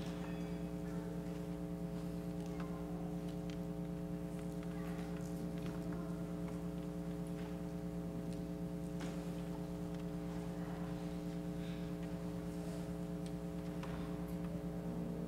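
Steady electrical buzz from the sound system, a flat chord of evenly spaced tones that never changes, with faint scattered knocks and shuffles underneath.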